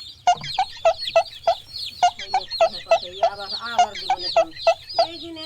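Chickens clucking, about three short clucks a second, with a steady layer of high, falling chirps over them.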